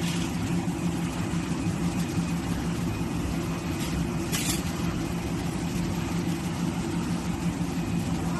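Folder gluer running steadily as it feeds corrugated box blanks through: an even machine hum with a steady low tone. A brief hiss comes about four and a half seconds in.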